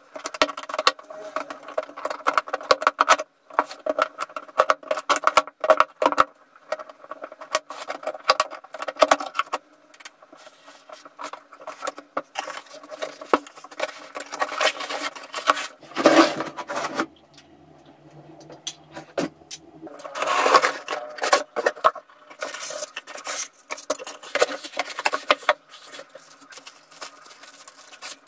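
Cardboard box being unpacked by hand: packing tape worked loose from the carton, cardboard flaps pulled open and scraped, and plastic wrapping rustled, as a run of small clicks and crackles with a few louder handling noises.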